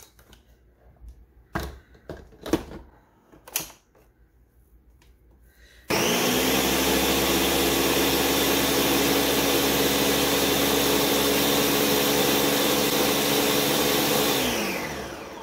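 Ninja countertop blender pureeing hot butternut squash soup. A few clicks as the lid and jar are handled, then the motor starts abruptly about six seconds in, runs steadily for about eight seconds and winds down near the end, its pitch falling.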